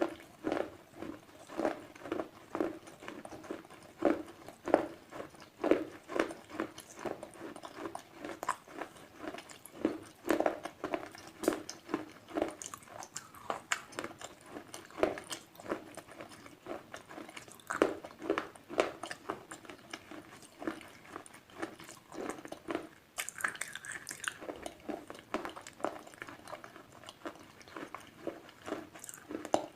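Slate pencils being bitten and chewed close to the microphone: a steady run of crisp crunches, one or two a second.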